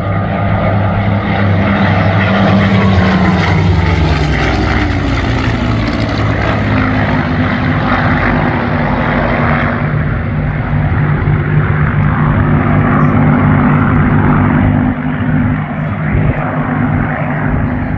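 Propeller-driven Second World War fighter aircraft flying past in formation, their piston engines droning loudly. The engine pitch drops a few seconds in as they pass, then settles into a steady drone as they climb away.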